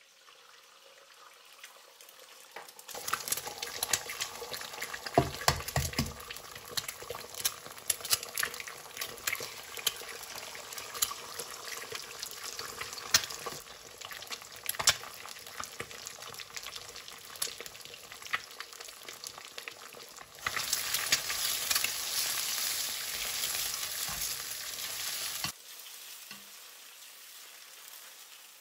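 Eggs frying in hot oil in a nonstick pan: quiet at first, then from about three seconds in a steady sizzle full of sharp crackling pops. It grows louder for a few seconds near the end and then drops back, with a spatula stirring and breaking up the eggs.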